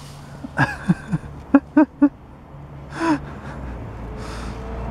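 A person's short bursts of laughter: a few falling-pitch laughs, then three quick 'ha' pulses, and a breathy laugh or gasp about three seconds in.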